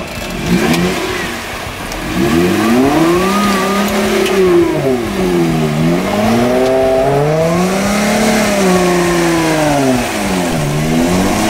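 Jeep Wrangler's engine revved up and eased off in long swells, about three times, as the four-wheel-drive works its way through a deep muddy rut.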